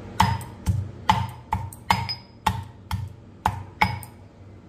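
Pestle pounding pieces of raw meat in a mortar: about nine sharp strikes, roughly two a second, each with a short ring. The meat is being beaten coarse and flat.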